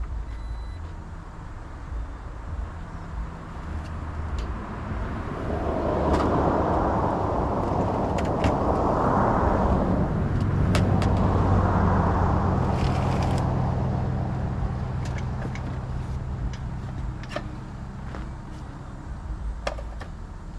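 Jeep driving: a steady low engine hum with tyre and road noise that swells to its loudest through the middle and then fades, with a few light clicks.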